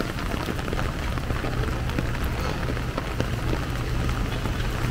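Heavy typhoon rain pouring onto a wet street and pavement, a dense steady hiss with scattered sharp drop ticks over a low continuous rumble.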